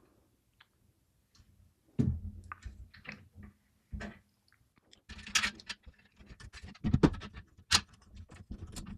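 Hands handling computer parts and cables in a small PC case: scattered clicks, taps and light knocks, quiet for the first two seconds, busiest with a run of rattly clicks in the second half.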